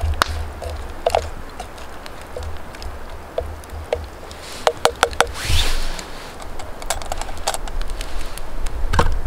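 Campfire crackling and popping while a wooden stick stirs beans in a metal camping pot, with a soft hiss swelling about halfway through over a low rumble.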